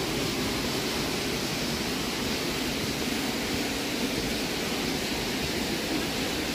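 Steady rushing of water in a gorge, an even, unbroken roar of falling and running water.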